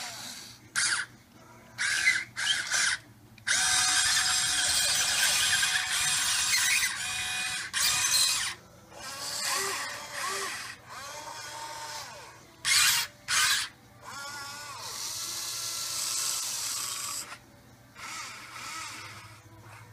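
Huina 580 RC excavator's small electric gear motors whining in repeated stop-start bursts as it tracks forward and swings and lowers its boom and bucket. The pitch shifts with each move. Some bursts are a fraction of a second, and one runs about five seconds.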